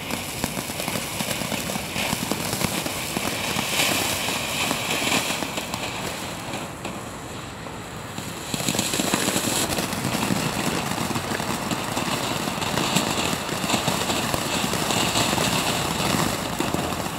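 Weco Quattro four-stage ground fountain firework spraying sparks with a steady hiss and crackle. The spray dies down about six seconds in, and the next stage catches about two and a half seconds later and keeps going louder.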